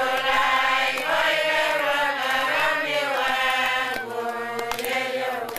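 A group of voices chanting together in long held notes that move slowly up and down in pitch.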